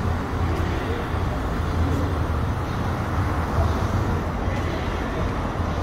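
Steady city street traffic noise: a continuous low rumble of vehicles on a downtown street.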